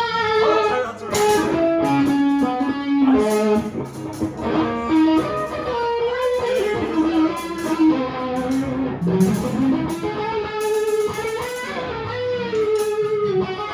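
Electric guitar playing a single-note lead line with slides and pitch bends, one note bent upward about nine seconds in, alongside sharp hits.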